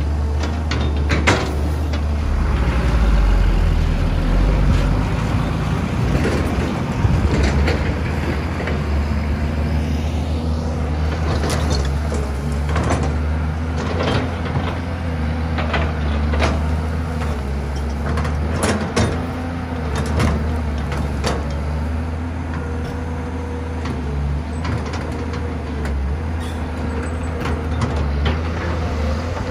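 Caterpillar 320B hydraulic excavator's diesel engine running steadily with a low drone as it digs dirt, with scattered sharp clanks and knocks from the bucket, soil and rocks.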